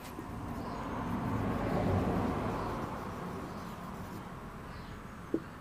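A motor vehicle passing by, its noise swelling to a peak about two seconds in and then fading away, with one short tap near the end.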